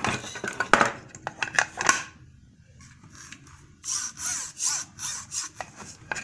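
Handling noise of the plastic toy skid steer's parts: several sharp clicks in the first two seconds, then rubbing and scraping a little past the middle.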